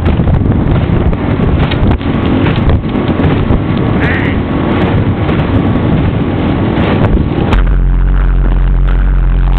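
Motorboat running fast across open water, with heavy wind buffeting the microphone over the engine and hull noise. About seven and a half seconds in, the buffeting stops abruptly and a steady, even engine drone is left.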